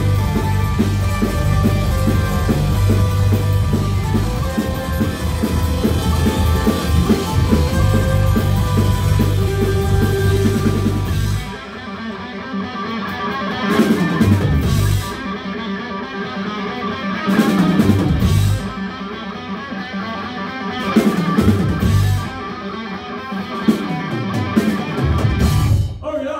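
Live rock band playing loud: electric guitars, bass guitar and a drum kit. About halfway through the steady groove stops, and the band plays heavy unison hits every few seconds over held guitar chords, then cuts off at the close of the song.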